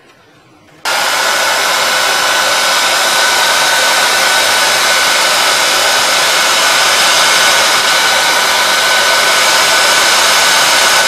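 Hand-held hair dryer switched on about a second in, then blowing steadily at full power, a rush of air with a steady whine, aimed at the tip of a ballpoint pen refill to free its dried ink.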